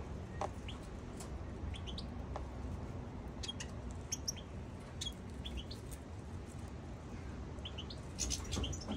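European goldfinches giving short, high chirping calls in scattered bunches, over a low steady background rumble.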